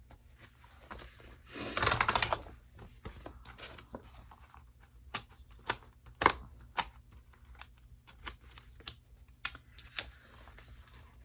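Paper planner pages being handled and pressed onto the discs of a discbound planner: a short stretch of paper rustling about two seconds in, then a scatter of sharp clicks and snaps as the pages seat on the discs.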